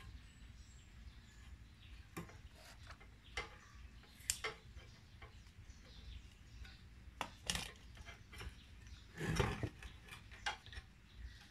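Scattered small clicks and knocks of hardwood pieces and small hardware being handled by hand, irregular rather than a steady hammering, with one louder, longer knock about nine seconds in.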